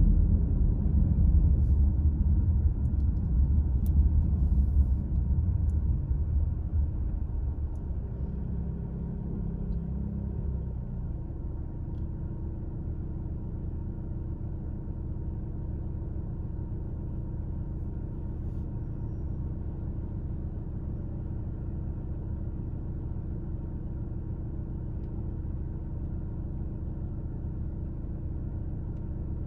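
Car driving: low engine and road rumble that eases off over the first ten seconds or so, then settles to a steady, even engine hum.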